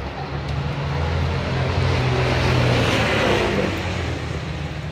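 A motor vehicle passing by: a low engine hum and rushing noise that swell to a peak about three seconds in, then fade.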